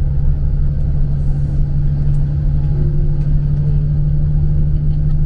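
Steady engine drone and road rumble heard from inside a moving road vehicle, with a low hum that holds steady throughout.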